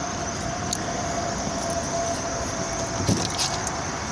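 Steady outdoor background noise with a steady hum. About three seconds in comes a short thump and a few clicks as a car door is opened.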